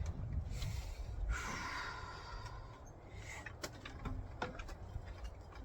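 A person breathing hard and straining, with scattered light metal knocks and scrapes, while working a loosened diesel cylinder head free of the engine block.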